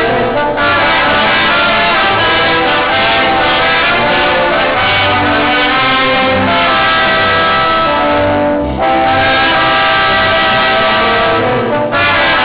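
Brass quintet of two trumpets, French horn, trombone and tuba playing a piece together, with brief breaks between phrases about half a second in, near the nine-second mark and near the end.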